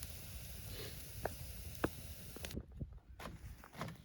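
Campfire crackling with a few sharp pops, cutting off abruptly about two and a half seconds in, followed by a few light knocks.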